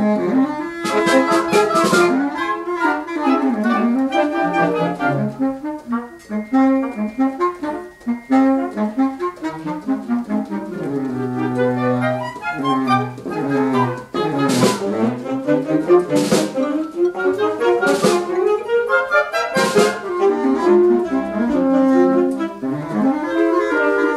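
Wind band playing live: saxophones, clarinets and brass carry moving melodic lines over percussion. Sharp percussion strokes come in a quick cluster near the start and then four times, evenly spaced about two seconds apart, in the second half.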